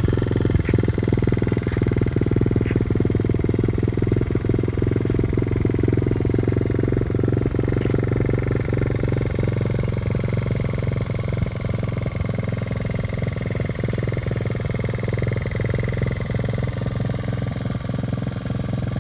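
1984 Honda Z50R mini bike engine idling steadily as it warms up, running through an aftermarket slip-on muffler.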